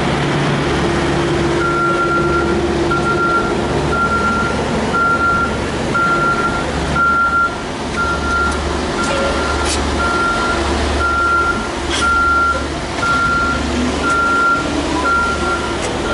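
A vehicle's reversing alarm beeping steadily, about once a second, over a running engine's low rumble. A couple of light metallic clinks come from stainless steam-table lids being handled.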